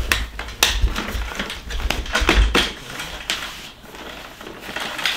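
Handling noise from a 4moms baby swing's plastic seat and fabric cover being fitted by hand: a run of clicks and knocks with fabric rustling over the first three seconds or so, then quieter rustling.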